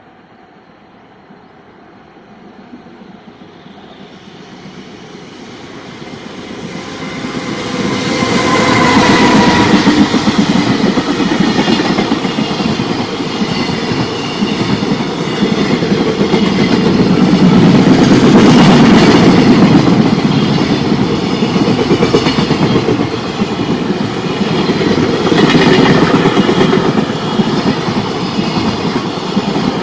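JR Freight container train approaching, growing steadily louder over the first eight seconds, then running past with loud, steady rolling of wheels on rail and the clickety-clack of the wagons going on to the end.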